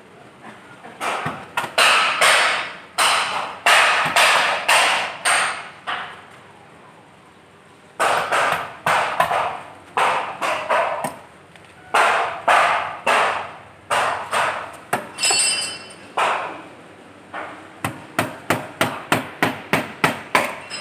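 Repeated sharp strikes in quick runs of several blows, with pauses of a second or two between runs and a faster, closer-spaced run near the end.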